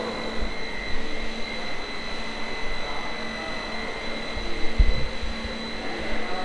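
Steady mechanical hum with a constant high whine over a low drone.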